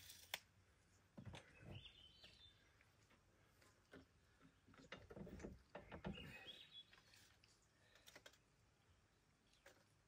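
Near silence: faint clicks and a few soft knocks of hands working on a Hud-Son Hunter bandsaw mill with its engine off, and two short high chirps, about two and six seconds in.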